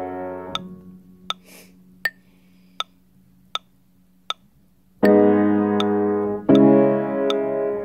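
Upright piano playing a minor-key chord progression: a chord rings and fades early, then after a pause of about three seconds full chords are struck again, about a second and a half apart. A steady tick keeps time about every three-quarters of a second throughout.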